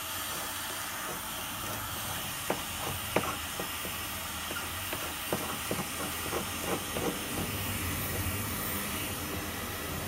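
A 2000 W electric heat gun blows a steady hiss of hot air at old paint on a wooden window sill. A paint scraper makes a run of short scrapes and clicks in the middle as it lifts the softened paint.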